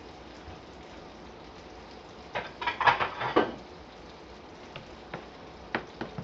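Cooking utensils clattering against cookware for about a second in the middle, then a few single light clicks, over a faint steady frying sizzle.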